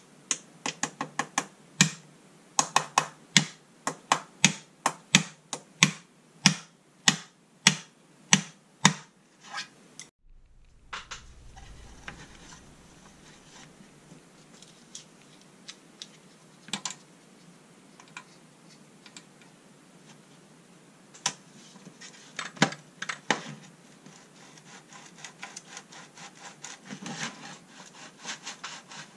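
Small hammer tapping the hinge pin of an old tin box, a steady series of sharp metallic taps, about two a second, for about ten seconds. Later come scattered clicks and scraping as the loosened hinge pin is pulled out with pliers.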